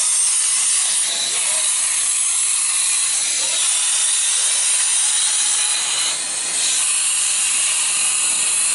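Steam locomotive venting steam in a steady hiss, dipping briefly about six seconds in.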